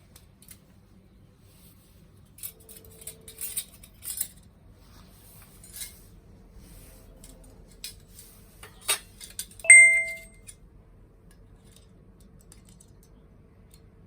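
Small metal camping gear being handled: light clicks and rattles, then a sharp knock and a single bright metallic ding, metal striking metal and ringing briefly, about ten seconds in.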